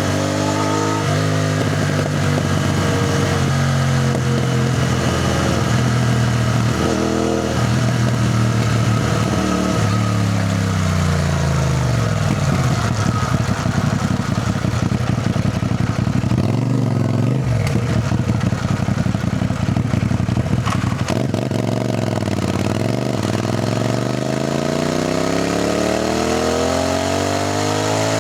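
CFMoto 450NK motorcycle's parallel-twin engine under way: its pitch steps through gear changes in the first several seconds, then falls as the bike slows. It runs low through the middle and climbs steadily near the end as the bike accelerates.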